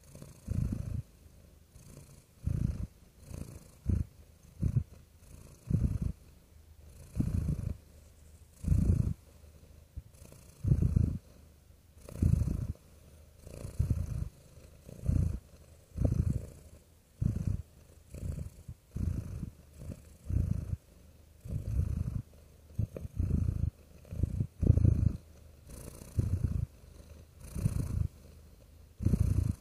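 Domestic cat purring in a steady rhythm of low pulses, roughly one a second, with short quieter gaps between them as the cat breathes in and out.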